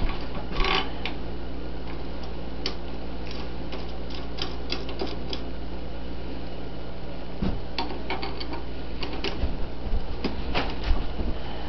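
Metal clicks and taps of an Allen wrench working the grab bar's mounting bolts, coming in irregular clusters over a steady low hum.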